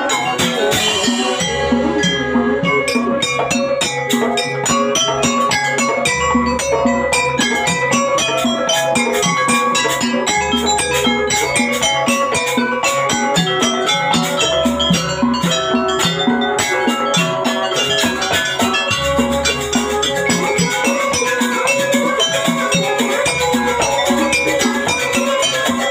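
Jaranan accompaniment played live by a gamelan-style ensemble: ringing tuned metal percussion over drums in a dense, steady beat, with a deep low tone returning every few seconds.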